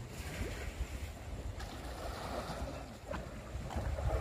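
Low wind rumble on the microphone over the wash of the sea, with a few faint clicks.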